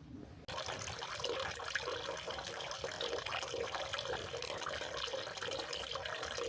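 Running water splashing and trickling steadily, which cuts in abruptly about half a second in.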